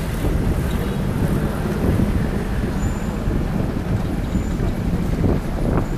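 Beijing Jeep driving through city traffic: steady engine and road noise heard from a camera on its hood.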